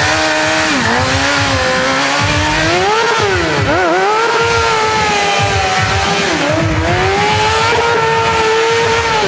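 Suzuki GSX-R750's inline-four engine held at high revs through a burnout, its pitch swinging down and back up several times, over the hiss of the rear tyre spinning on the pavement. The revs fall away right at the end.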